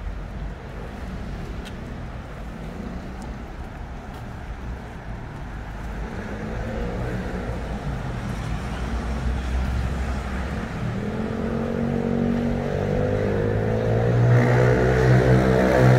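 Street traffic noise, then a vehicle engine drawing near: its steady pitched hum grows louder over the last few seconds.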